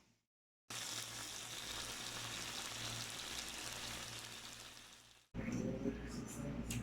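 Chicken frying in oil on a tawa, a steady sizzle that fades and cuts off about five seconds in. A low hum with a few faint clicks follows.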